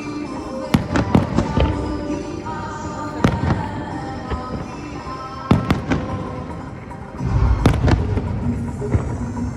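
Fireworks bursting in a pyromusical show, a string of sharp bangs scattered over music. About seven seconds in, the music takes on a heavy bass.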